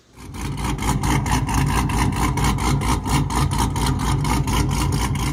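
An engine running with a steady, rhythmic exhaust beat of about seven pulses a second, cutting in suddenly and holding at an even level.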